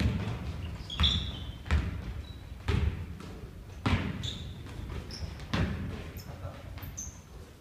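A basketball being dribbled on a wooden gym floor, bouncing about once a second at an uneven pace, each bounce echoing through the hall. A few short, high sneaker squeaks come in between the bounces.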